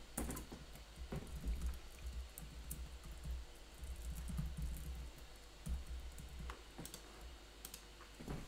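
Typing on a computer keyboard: scattered, irregular key clicks over a low rumble.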